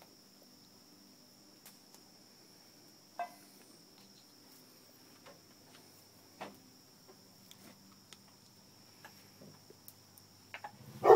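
Quiet scene with a steady high insect drone, typical of crickets, and a couple of faint knocks. A dog starts barking right at the end.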